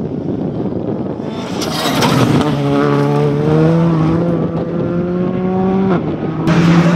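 Škoda Fabia R5 rally car's turbocharged four-cylinder engine under hard acceleration through a loose gravel bend, with stones and grit spraying from the tyres as it passes, then a steady engine note rising slowly in pitch as it pulls away. Near the end a louder engine sound cuts in abruptly.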